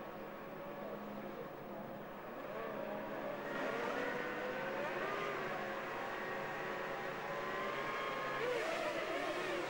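A grid of Formula One cars' 3-litre V10 engines revving on the start line, many engines at once with their pitch wavering as drivers hold the revs. It gets louder about three and a half seconds in and swells again near the end as the start lights come on.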